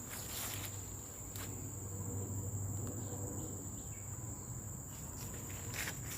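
Insects calling in one steady, high-pitched drone, over a faint low hum, with a couple of light clicks about a second and a half in and near the end.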